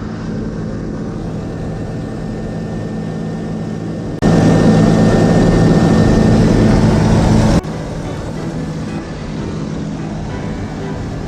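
Light propeller airplane's engine and propeller running steadily. About four seconds in the sound jumps abruptly much louder, then drops back just as suddenly about three seconds later.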